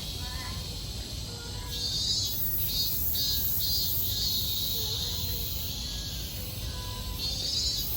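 Cicadas singing in a loud, high, shrill buzz. Steady stretches alternate with pulsing phrases of a few pulses a second, about two seconds in and again near the end. Soft background music plays underneath.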